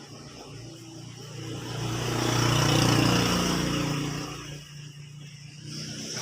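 A motor vehicle running steadily, growing louder to a peak about halfway through and then easing off again.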